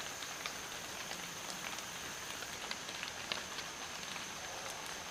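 Light rain pattering on leaves in the woods, with scattered drops ticking and a faint steady high whine behind.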